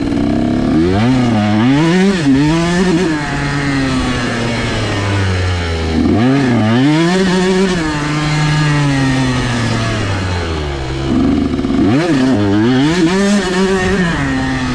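Two-stroke motorcycle engine revving up and down in quick bursts, three times, dropping back to a lower, steadier note between bursts.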